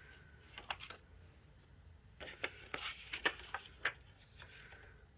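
A handful of light, scattered clicks and taps, mostly in the second half, from small hard objects being handled, over a faint steady hum.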